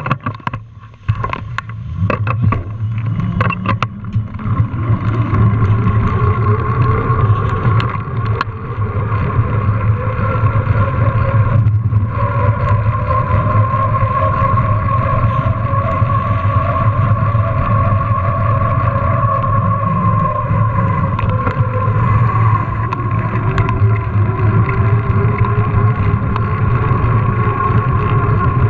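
Mountain bike rolling fast over stone paving, with wind buffeting the camera's microphone. The tyres give a hum that rises in pitch over the first few seconds as the bike picks up speed, then holds steady. A few sharp clicks come near the start.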